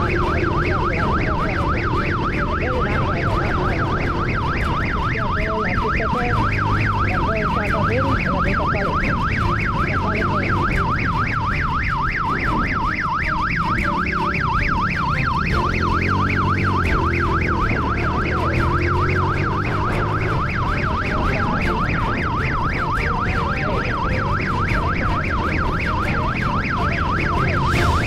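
Police siren in a rapid up-and-down yelp, several sweeps a second without a break, over the motorcycle's engine and road noise.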